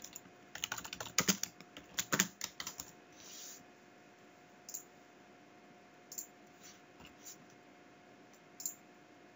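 Typing on a computer keyboard: a quick run of key clicks through the first three seconds, then a handful of single clicks spaced a second or more apart.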